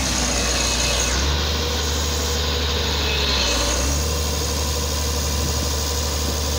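Diesel engine of a Hitachi EX110 tracked excavator running steadily, a continuous low drone.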